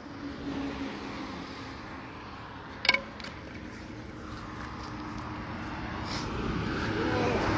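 A motor vehicle's engine and road noise growing steadily louder, as of a vehicle approaching, with one sharp click about three seconds in.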